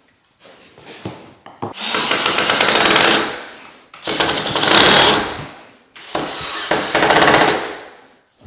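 Power drill driving screws, most likely for door-knob hardware: three runs of a second or two each, with short gaps between them, after a few light handling knocks.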